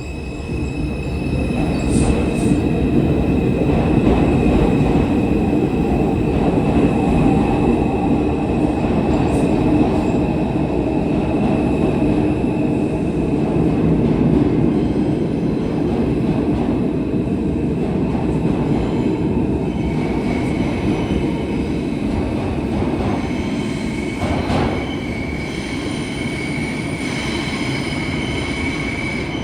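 New York City subway train running, a dense rumble with wheels squealing in a high, thin steady tone; the squeal shifts to a slightly lower pitch about twenty seconds in.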